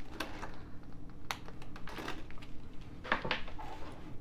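A pouch being closed up and moved off a tabletop: several light clicks and rustles, the sharpest a little over a second in and about three seconds in.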